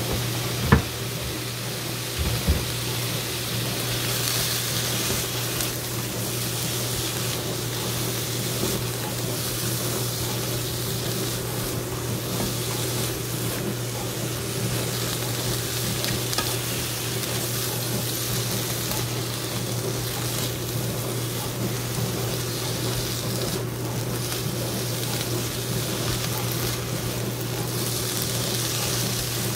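Diced onion, shiitake mushrooms and zucchini frying in a stainless steel pan, with a steady sizzle and a steady low hum underneath. Two sharp knocks come in the first few seconds.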